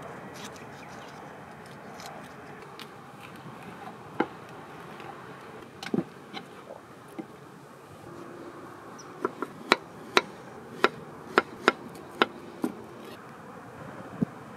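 Knife slicing a banana on a wooden cutting board, the blade tapping the board about nine times in quick succession, roughly two taps a second. A few scattered clicks and knocks come before it, over a steady faint background hiss.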